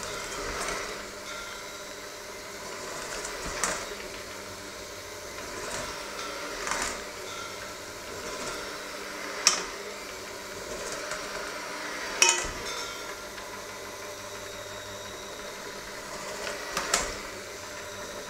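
Electric hand mixer running steadily in a stainless steel bowl of crumbly flour mixture, with sharp clanks every few seconds as the beaters knock against the bowl's side.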